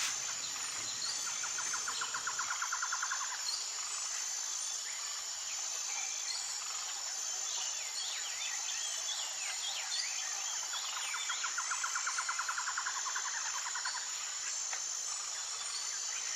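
Tropical forest ambience: a steady, high-pitched insect chorus that pulses evenly. A rapid pulsed trill comes in twice, near the start and again past the middle. A burst of short bird chirps falls between the two trills.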